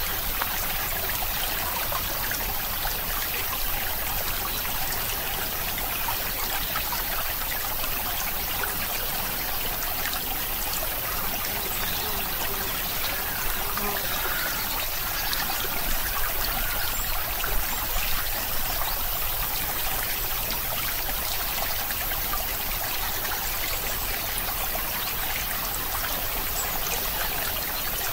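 Steady, even rush of flowing water, like a stream or trickle, with a few slightly louder flickers about two-thirds of the way through.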